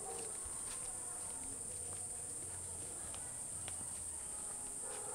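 Steady high-pitched chorus of insects, with a few faint clicks.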